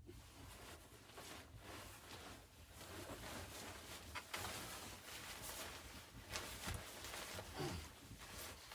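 Faint, irregular rustling and scraping with a few light knocks, growing somewhat louder about three seconds in.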